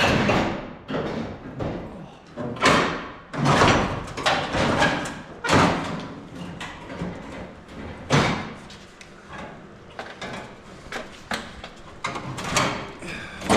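Irregular knocks and clanks of metal parts and tools being worked loose and handled during an engine-bay teardown, with scraping and rattling between the louder knocks.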